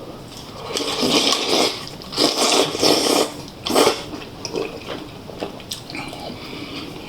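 Close-miked eating sounds of a man taking mouthfuls of gopchang jeongol, a beef intestine hot pot: three loud wet slurping, biting noises in the first four seconds, then softer chewing and lip-smacking clicks.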